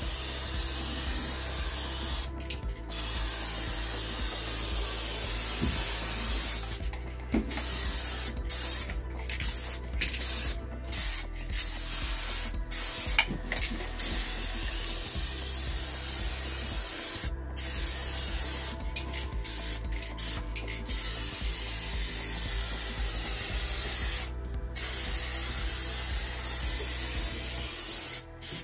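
Paint spray gun hissing as a coat of paint is sprayed on. The hiss stops briefly many times as the trigger is let off between passes, most often in the middle of the stretch.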